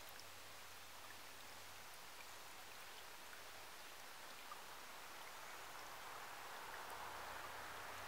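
Shallow stream running over stones: a faint, steady rippling trickle of water that grows a little louder near the end.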